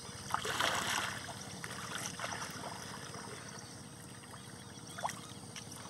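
Water trickling and splashing off a wet fishing net as it is hauled over the side of a wooden canoe, with small knocks and rustles against the hull. A louder rush of water comes about half a second in.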